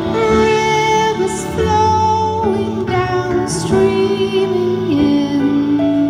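Live band playing a slow, gentle song: a woman's voice sings long held notes with vibrato over keyboards, bass and drums.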